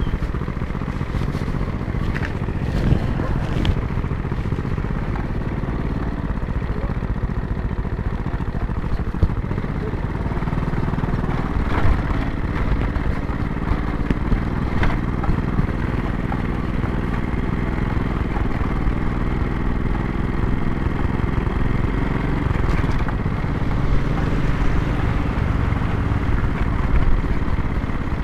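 Motor scooter engine running steadily while it is ridden over a dirt road, with a few short knocks scattered through.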